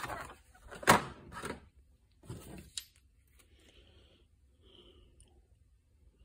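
Chrome sockets being handled: a few sharp metal-on-plastic knocks and a short clatter over the first three seconds, the loudest about a second in, then faint handling rustle.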